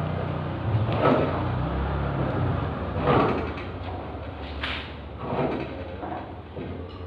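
A motor vehicle engine running at low speed, fading after the first few seconds, with several loud clunks and scrapes of heavy metal being moved.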